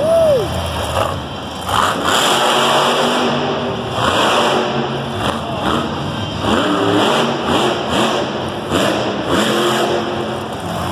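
Megalodon monster truck's supercharged V8 revving hard, its pitch sweeping up and dropping back again and again as it wheelies and jumps.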